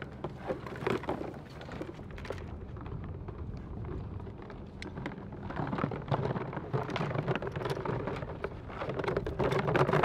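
Rustling and light knocks of full-body goose decoys and their stakes being handled and carried over sand, over a low wind rumble on the microphone. The handling noise is busier in the last few seconds.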